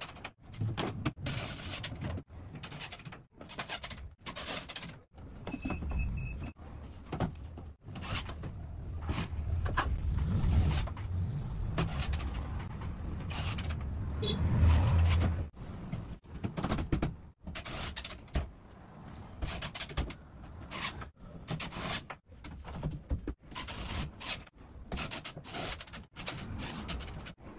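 Cordless drill/driver driving screws into the drywall panels and metal stud framing of a cabinet, its motor whirring in many short bursts, with a longer, louder run in the middle.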